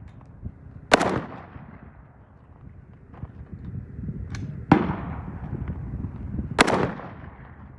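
Polish under-folder AKM rifle in 7.62×39 mm, fitted with an AK-74-style muzzle brake, fired as three single shots: one about a second in, then two more about two seconds apart near the middle and end. Each is a sharp crack trailing off in an echo.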